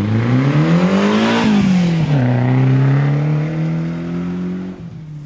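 Off-road car's engine revving up, dropping back about a second and a half in, then holding steady revs before falling away near the end.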